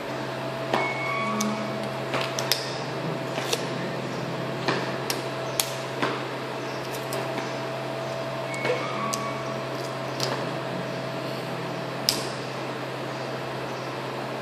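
A steady low hum with a fainter higher tone, like an appliance or air conditioner running. Over it come about a dozen light, irregular clicks and taps as gloved hands handle a cloth and a roll of masking tape on a cast stone tabletop.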